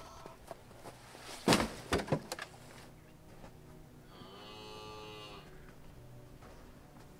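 A few loud knocks, then a cow mooing once for just over a second.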